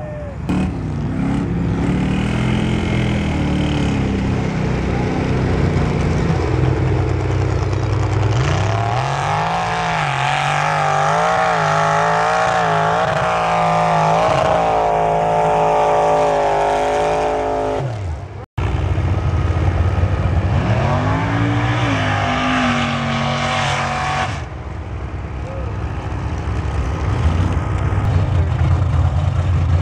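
Lifted mud-bogging pickup trucks' engines revving hard in a mud bog, the pitch climbing and falling over and over as the throttle is worked. A sudden break about eighteen seconds in, after which a second truck's engine is revving.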